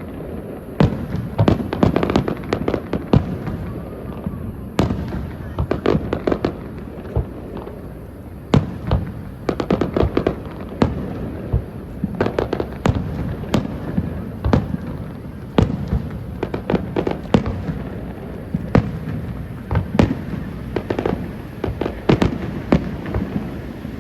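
Fireworks display: sharp bangs and pops going off in quick irregular clusters, over a steady low rumble of further bursts.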